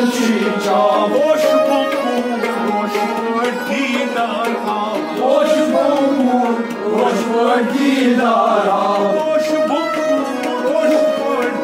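A harmonium playing a sustained, reedy melody in Kashmiri Sufi devotional music, with a hand drum beating a steady rhythm underneath.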